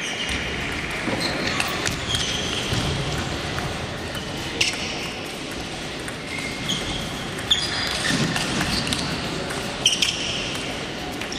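Table tennis balls clicking off bats and bouncing on tables, a sharp tick-and-ping every second or so, over the murmur of voices in a large echoing hall with several tables in play.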